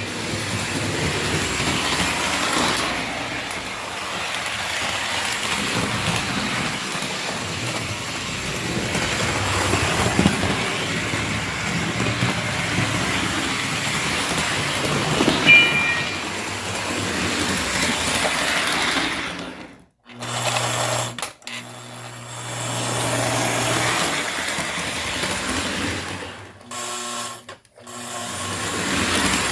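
Lionel O-gauge model electric locomotive running on track, with a steady mechanical whir and rumble of its motors and wheels. About 20 seconds in the running cuts off abruptly. Short stretches of a low steady hum and a few brief start-stop sounds follow.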